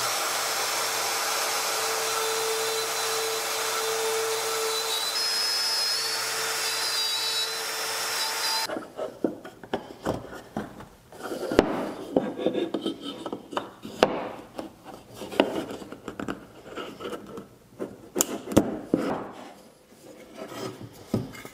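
A trim router running steadily in a mortising jig, cutting a loose-tenon mortise in the end of a mitered board, cuts off abruptly about eight seconds in. After it, wooden pieces are handled by hand: a small domino tenon is pressed into its mortise and the two mitered boards are pushed together, with scattered knocks, taps and rubbing of wood on wood.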